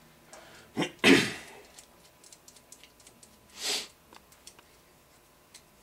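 Small metal clutch parts handled by hand on a workbench: light clicks and taps, with two short hissy bursts, the louder about a second in and the other later.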